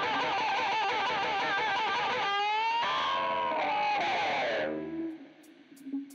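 Electric guitar music with distortion: long wavering held notes, then a phrase of notes sliding downward that dies away about five seconds in.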